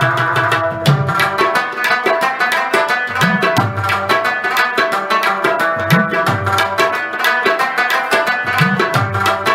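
Background music of fast tabla drumming over held melodic tones, with the low drum's pitch bending upward about every two and a half seconds.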